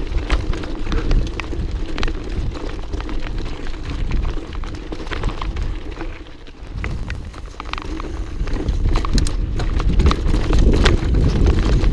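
Mountain bike riding fast down a dirt forest trail: tyres rolling over dirt and roots, with the bike's chain and parts rattling and clicking over bumps, under a low rumble of wind buffeting the camera's microphone. The noise dips briefly about six seconds in, then builds up again.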